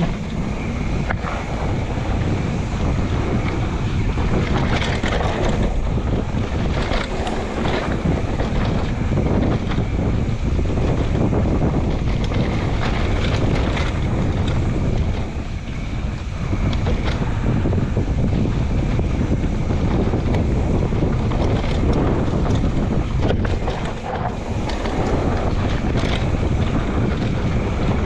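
Wind buffeting the microphone of a mountain bike's on-board camera during a downhill run, mixed with tyre noise on the dirt trail and the bike rattling and knocking over bumps. The noise eases briefly twice.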